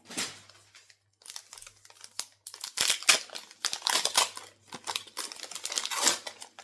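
Crinkling and tearing of a Topps football card pack's wrapper as it is ripped open and handled, in irregular bursts with short pauses.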